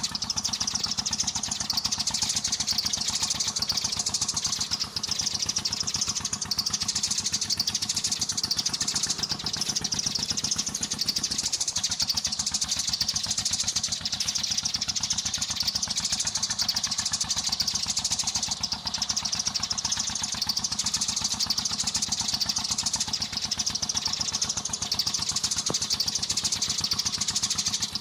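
Dense, continuous chirping of sparrows, a rapid unbroken chatter strongest in the high register, over a steady low hum.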